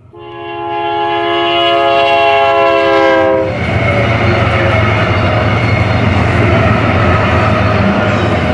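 A BNSF GE C44-9W diesel locomotive's air horn sounds one long, loud chord, which dips slightly in pitch and cuts off about three and a half seconds in as the locomotive passes. After that comes the locomotives' 16-cylinder diesel engines rumbling and the wheels clattering over the rail.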